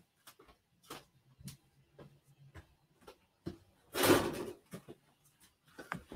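Faint scattered knocks and taps of someone moving about and handling things in a small room. About four seconds in comes a louder, brief rustling clatter.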